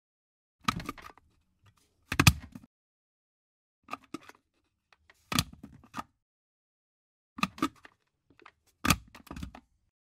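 A water boiler's plastic lid being flipped open and snapped shut over and over: six short bursts of two or three sharp clicks each, about one and a half seconds apart.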